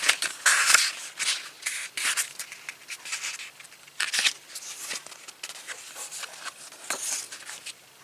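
Paper pages of a picture book being flipped back quickly: a rapid run of crisp rustles and flicks that thins out towards the end.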